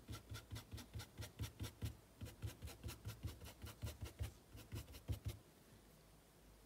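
A paintbrush brushing back and forth on fabric, about five faint scratchy strokes a second, stopping about five seconds in.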